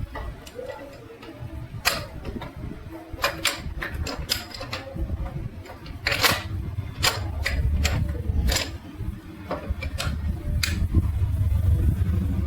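Metal gearbox parts of a motorcycle being handled and fitted by hand: irregular sharp clinks and knocks of metal on metal. A low steady rumble comes in underneath about halfway through.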